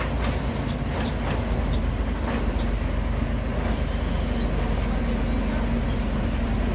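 Heavy diesel engine running steadily, with a few light clicks and knocks in the first couple of seconds.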